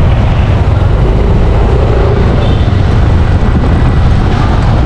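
Loud wind rush and buffeting on the microphone of a motorcycle being ridden along a street, with the motorcycle running underneath.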